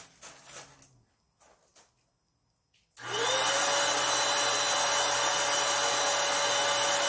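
Electric balloon inflator switching on about three seconds in and running with a steady whine, blowing up a latex balloon; light handling rustles before it.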